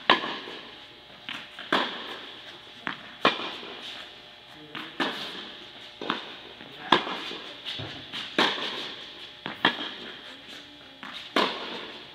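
Tennis rally: sharp racket strikes and ball bounces on an indoor court, coming every second and a half or so, often in pairs. Each one echoes briefly in the hall.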